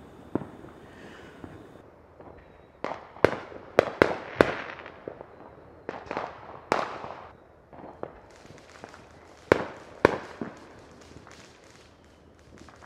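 Neighbourhood fireworks going off: a run of sharp bangs and cracks, several close together about three to four seconds in, another pair near the middle and two more about ten seconds in, each trailing off in a fading echo.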